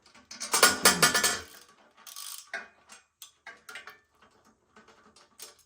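Loose metal parts clattering and jangling for about a second, followed by scattered small clinks and taps as parts and tools are handled.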